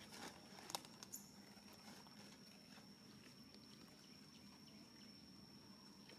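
Near silence: faint outdoor ambience with a thin steady high tone and a few soft clicks in the first second or so.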